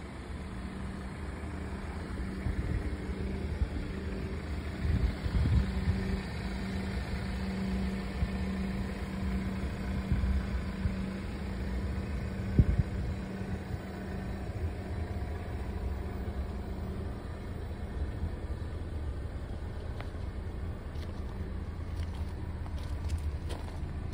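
Audi A5 Cabriolet's turbocharged four-cylinder engine idling with a steady hum, and a few low thumps on the microphone, the loudest about twelve seconds in.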